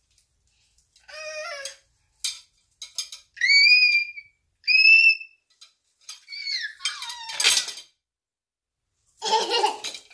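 Young girl squealing and shrieking with delight in several short, very high-pitched bursts, one sliding down in pitch, with a few light knocks in between.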